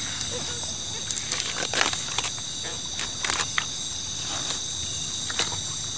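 A steady high chorus of night insects, with a run of close clicks and rustles from fishing gear being handled between about one and three and a half seconds in, and one more click near the end.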